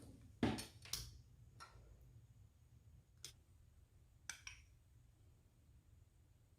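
A few scattered knocks and clicks, like objects being handled and set down: the loudest knock comes about half a second in, with lighter clicks over the next few seconds, over a faint low hum.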